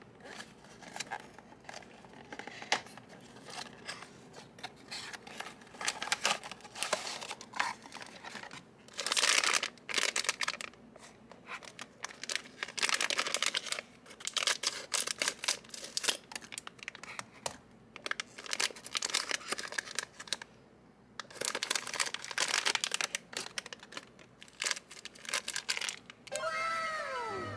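Crinkly plastic and foil packaging being handled and torn open, with small clicks and taps of a cardboard blind box and its contents, in several rustling bursts.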